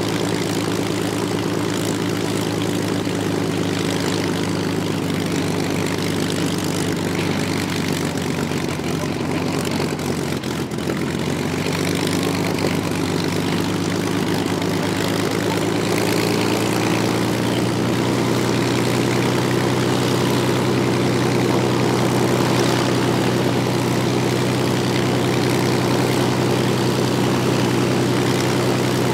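Supermarine Spitfire Mk IX's Rolls-Royce Merlin V12 running steadily on the ground after start-up, propeller turning. The revs rise slightly about halfway through.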